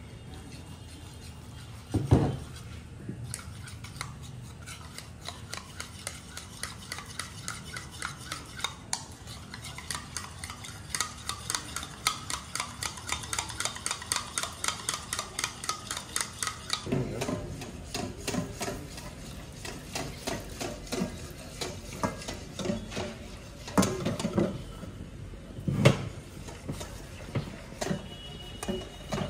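A kitchen utensil stirring briskly against the side of a dish, clinking in a quick even rhythm of about three strokes a second, with a sharp knock about two seconds in. Past the halfway point the strokes turn duller and uneven, with two louder knocks near the end.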